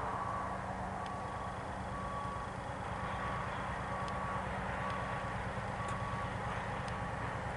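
Diesel locomotive rumbling steadily as it approaches at low speed, with a short electronic beep repeating about once a second over it.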